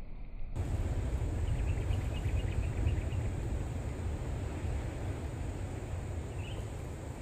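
Outdoor ambience with a steady low rumble and faint insect chirping: a run of quick high chirps about a second and a half in, and a single short chirp near the end. The sound changes abruptly about half a second in.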